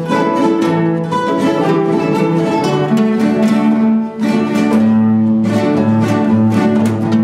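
Several nylon-string classical guitars playing keroncong-style music together, with the guitars standing in for the keroncong cak and cuk. Quick plucked notes ring over lower bass notes.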